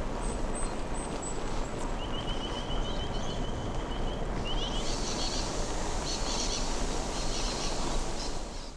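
Birds calling over a steady rush of wind noise. A short series of very high notes comes first, then a fast, evenly repeated trill about two seconds in that lasts two to three seconds, followed by a few quick chirps.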